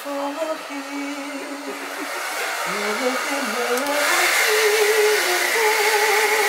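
Handheld hair dryer blowing over towel-wrapped hair, growing louder about four seconds in, with a wavering pitched melody underneath.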